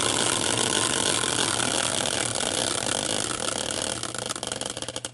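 Hand-spun caster wheel, used as a prize wheel, whirring on its axle. It is a steady rushing whir that fades near the end and breaks into separate ticks as the wheel slows, then dies away.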